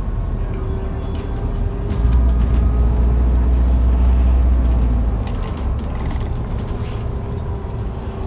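Alexander Dennis Enviro400H MMC diesel-electric hybrid double-decker bus heard from the lower deck while driving, its drivetrain running with a steady whine over a deep rumble. The rumble grows much louder about two seconds in and eases off around five seconds in, with a few sharp knocks from the bus interior.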